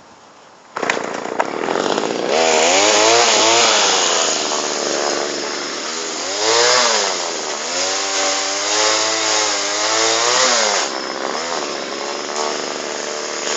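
Two-stroke McCulloch chainsaw starting up about a second in, then revved up and down several times, its pitch rising and falling with each rev.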